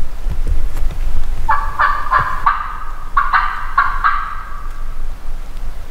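Hunter's turkey call sounding two short runs of hen yelps, about three notes a second, to draw a gobbler in.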